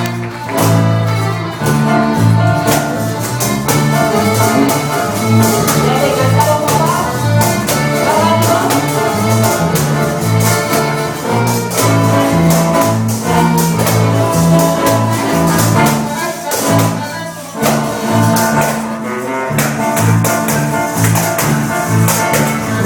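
Live polka played by a small band of guitars and accordion over a stepping bass line, with tambourines jingling along to the beat. The music dips briefly about two-thirds of the way through, then picks up again.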